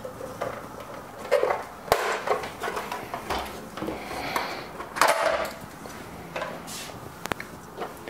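Plastic case of a Baratza Preciso conical burr coffee grinder being worked off by hand: irregular clicks, knocks and scrapes of plastic parts, with a few sharp knocks among them.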